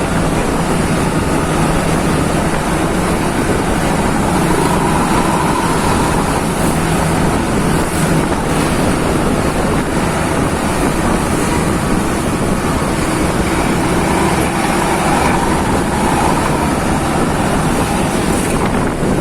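Steady, loud running noise of a moving road vehicle, a rumble with a faint hum, mixed with wind buffeting the microphone.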